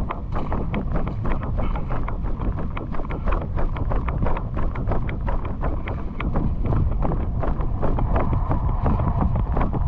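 Wind buffeting an action camera's microphone, a loud low rumble, with many quick rustles and knocks mixed in, several a second.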